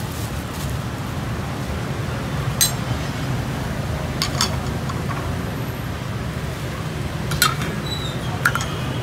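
Ceramic bowls clinking against each other as they are handled, about five short sharp clinks spread through the stretch, over a steady low rumble.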